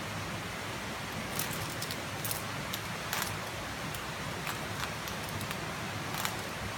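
Climbing hardware, carabiners and gear on the rope, clinking in short sharp clicks about once a second, over a steady rushing hiss.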